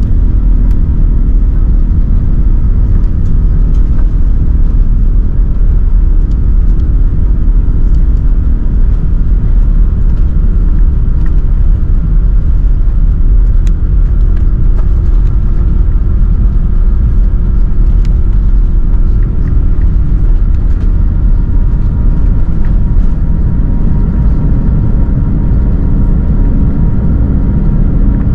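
Airbus A380 cabin noise: a loud, steady low rumble of the engines and airframe, with faint steady tones above it.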